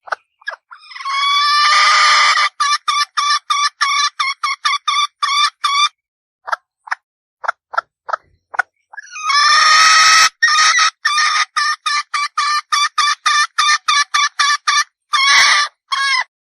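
Red junglefowl hen calling in two bouts: each opens with a long harsh note and runs into a rapid string of short clucks, about five a second.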